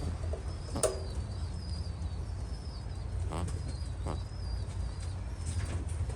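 Old buck rabbit making its rumbling 'ronroneo' noise while chewing a mouthful of food, with two short pulsing snuffles in the middle, which the breeder ties to its mouth and airways and considers harmless in old bucks. Small birds chirp behind it, and there is a sharp click just under a second in.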